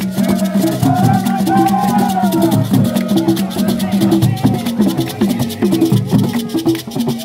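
Borborbor music: Ewe barrel drums played in a fast, driving rhythm with shaken rattles and handclaps, and a group of voices singing over the drumming.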